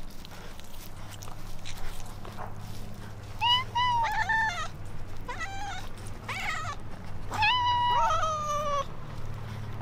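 Several hungry cats meowing for food: a string of short, rising meows one after another from about a third of the way in, two cats calling over each other near the end.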